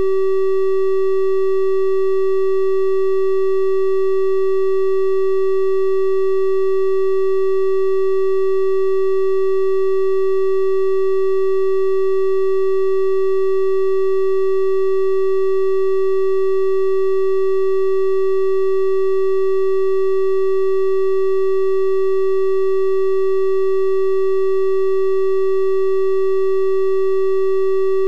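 Synthesized 384 Hz triangle-wave tone, held steady and unchanging, with faint higher overtones.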